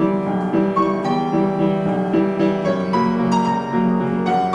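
Piano being played: a slow melody over held chords, the notes ringing on into one another.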